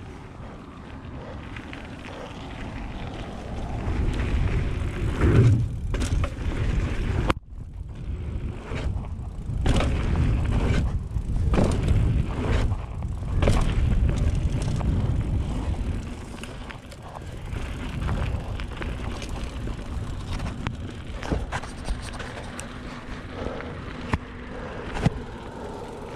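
Mountain bike being ridden over rough trail: wind rumble on the microphone and tyre noise, with clattering knocks from the bike over bumps. It is loudest between about four and sixteen seconds in.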